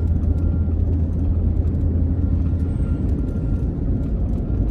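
Car driving along a highway, heard from inside: a steady low drone of engine and tyre noise.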